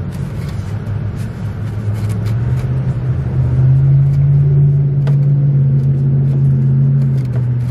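A steady low motor hum, most likely a vehicle engine running nearby, that rises a little in pitch about two and a half seconds in and then holds, with light scattered clicks of handling.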